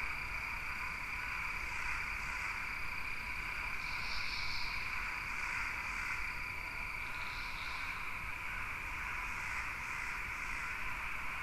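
A steady, even chirring background drone with a thin high tone, and two brief louder chirps, about four and seven and a half seconds in.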